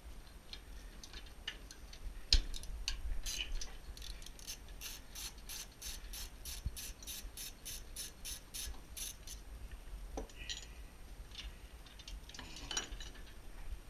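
Hand tools and metal parts being worked while a pellet stove is taken apart. A sharp knock comes early, then a steady run of evenly spaced clicks, about three or four a second, lasting around five seconds. Scattered scrapes and knocks follow.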